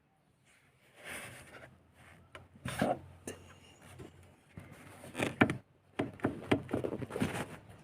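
Irregular knocks and rattles from the left side of a VAZ (Lada) car's plastic dashboard, with a denser run of sharp knocks in the second half.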